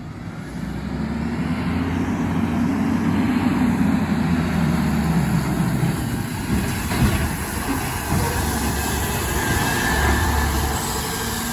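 Garbage truck's engine running, rising for a few seconds and then falling, with sharp knocks about seven and eight seconds in.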